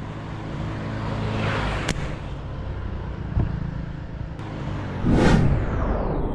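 A motor vehicle's engine running steadily, with a single sharp snap about two seconds in and a louder rushing swell about five seconds in.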